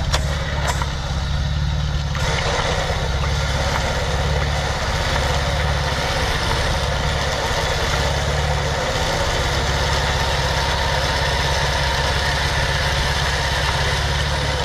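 Side-by-side UTV engine idling steadily, close by, with a couple of sharp clicks at the very start.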